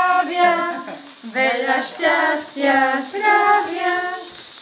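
A small group of voices singing a birthday song together, in sung phrases with a short break about a second in.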